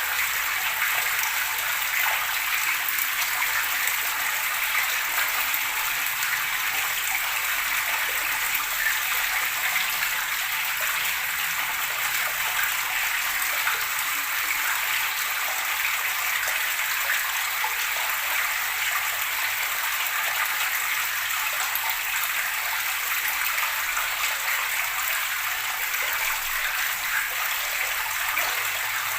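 Running water gurgling steadily, an even rushing sound without pause.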